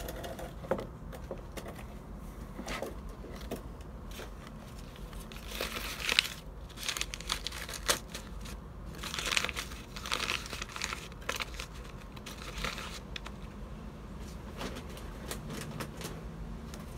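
Newspaper seed pots crinkling and rustling as hands fill and firm compost into them, in irregular bursts with a few sharp crackles, the busiest around six and ten seconds in.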